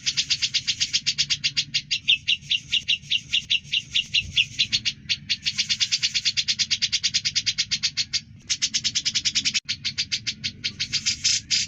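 Cucak jenggot (grey-cheeked bulbul) giving a fast, even chatter of high, sharp notes at about ten a second, broken by short pauses about halfway and again near three-quarters through.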